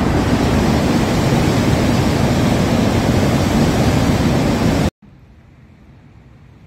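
Loud, steady rush of turbulent whitewater pouring out below a dam barrage's gates. It cuts off abruptly about five seconds in, leaving a much fainter steady rush.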